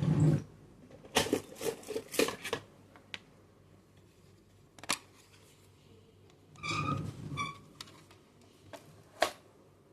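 Irregular clicks, taps and rustles of small hard objects being handled, with a brief squeak about seven seconds in and a sharp click near the end.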